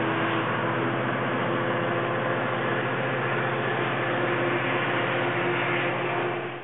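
EMD F59PHI diesel locomotive pushing a Capitol Corridor passenger train away from the platform, its engine a loud, steady pitched drone. The sound cuts off suddenly at the end.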